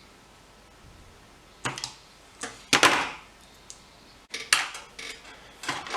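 Workbench handling noises: five or so short, sharp scrapes and clacks about a second apart as small tools and parts are picked up and set down.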